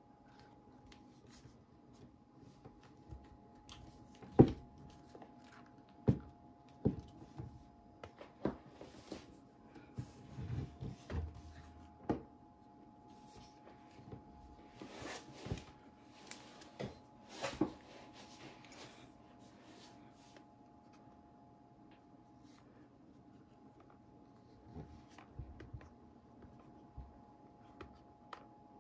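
Plastic clicks and knocks from a DJI Osmo Mobile 3 smartphone gimbal being handled, its folding arm and clamp swung into place. The knocks are scattered and irregular, the loudest about four seconds in, over a faint steady hum.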